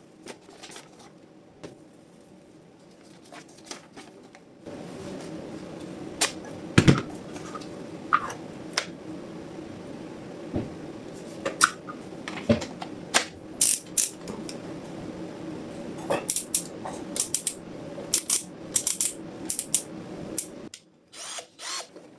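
A Parkside power drill's motor runs steadily for about sixteen seconds, starting about five seconds in and stopping shortly before the end. Sharp clicks and metallic clinks come throughout, before it starts and while it runs.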